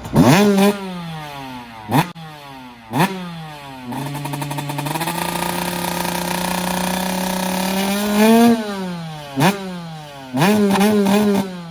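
Small off-road motorcycle engine revved in quick throttle blips, the pitch jumping up and falling away after each. It is held at a steady speed for about four seconds in the middle, then drops and is blipped several more times near the end.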